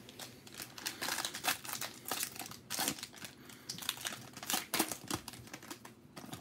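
Foil wrapper of a Prizm football card pack crinkling in the hands as it is torn open, a run of irregular crackles.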